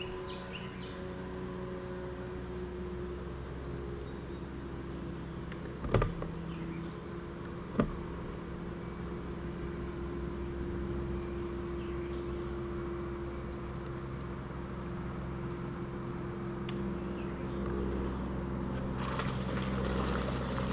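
Electric trolling motor on a bass boat's bow humming steadily, with birds chirping over it. Two sharp knocks come about two seconds apart a third of the way in, and near the end a rush of splashing as a hooked bass thrashes at the surface.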